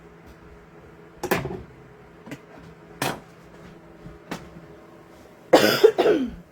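A few sharp, short knocks over a faint steady hum, followed near the end by a louder, rough burst lasting under a second.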